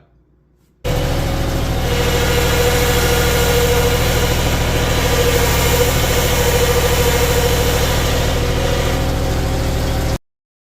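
A motor or engine running steadily at an even speed, with a steady mid-pitched hum over a low drone; it starts abruptly just under a second in and cuts off shortly before the end.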